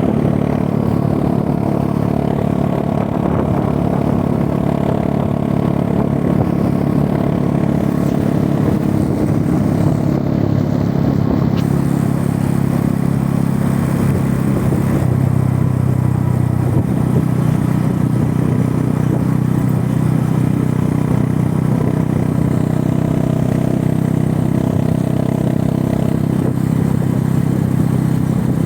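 Motorcycle engine running steadily, its pitch shifting a little now and then.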